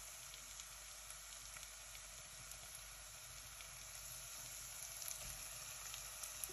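Mutton pieces frying in oil in a nonstick pot on a low gas flame: a faint, steady sizzle with scattered light crackles, a few more of them near the end.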